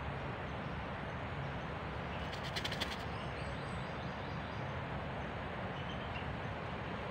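Dove cooing low over steady forest background noise, with a short run of rapid sharp clicks about two and a half seconds in.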